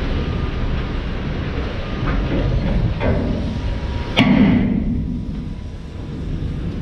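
Bales of crushed scrap cars being dumped from a tilted steel end-dump trailer, over a steady low rumble. There are metal knocks about two and three seconds in, and a loud crash a little after four seconds as a bale drops out and lands.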